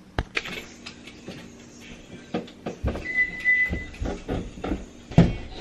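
Irregular thumps and knocks of someone moving down a carpeted staircase with bags for the car, the loudest thump about five seconds in. A short high tone sounds for about a second near the middle.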